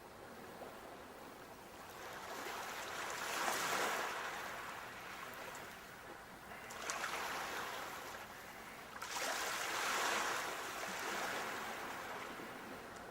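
Sea waves washing in. The surf hiss swells and fades three times, a few seconds apart.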